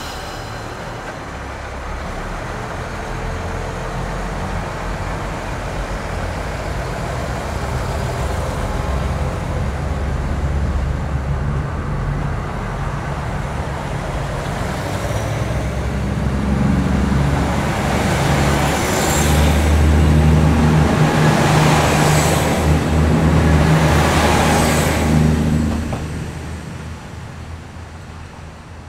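KiHa 85 series diesel multiple unit moving off past the platform, its Cummins diesel engines working under power with a deep throb that grows louder. Wheels clack over rail joints several times in the second half, and then the sound falls away near the end as the last car goes by.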